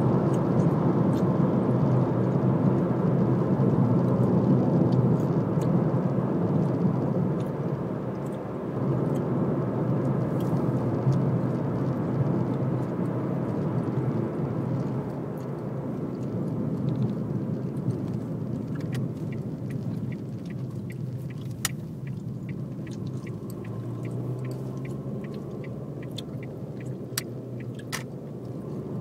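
Road and engine noise heard inside a moving car's cabin: a steady low rumble that grows quieter over the second half, with scattered light clicks near the end.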